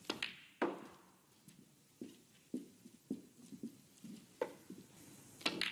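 Snooker shot: the cue tip strikes the cue ball, then balls click together. A string of soft, irregular knocks follows, and there is another cluster of sharp clicks near the end.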